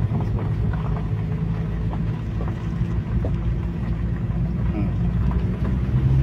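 Car running slowly along a gravel road: a steady low engine hum with tyres rolling on gravel, growing a little louder near the end.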